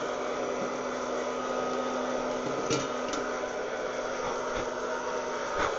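Wear-Ever Popcorn Pumper hot-air popper running steadily, its fan blowing hot air up through the tin can of roasting coffee beans, with a steady hum underneath. A few sharp clicks come through about halfway and again near the end.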